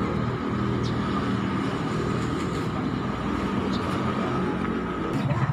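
A large bus diesel engine idling steadily, a constant low hum.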